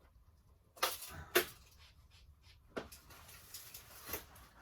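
Handling sounds from measuring and marking on a board with a tape measure and pencil: four sharp clicks and knocks, the loudest about a second and a half in.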